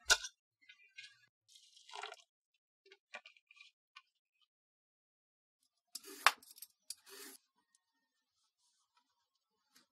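A ceramic bowl clinking as a bundle of dry rice vermicelli is pressed into it, followed by brief splashes, rustles and small clinks as the noodles are soaked in water. The loudest sharp clink comes about six seconds in.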